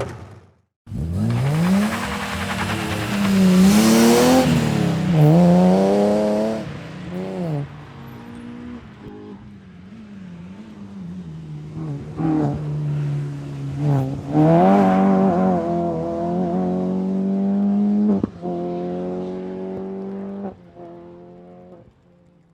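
Engine of a Cushman utility vehicle running and being revved, its pitch climbing and falling several times, then dropping away near the end.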